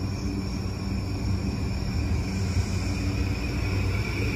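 Electric commuter train (E235-1000 series) pulling away from the platform: its traction motors and inverter give a steady low hum under a high whine that grows louder near the end as the train gathers speed.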